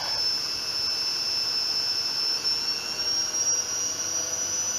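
Zanussi ZWF 1432 washing machine on its spin cycle: a steady motor-and-drum whine that rises slowly in pitch as the drum speeds up. It runs smoothly, with no sign of bad bearings.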